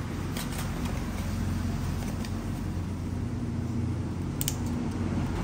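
A microSD card's card-and-plastic retail packaging being peeled and torn open by hand, with a few short crackles, over a steady low motor hum.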